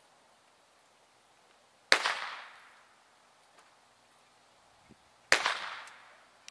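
Two blank-pistol shots about three and a half seconds apart, each a sharp crack with an echoing tail. They are the gunshot test of a dog's gun sureness during off-leash heeling in IPO obedience.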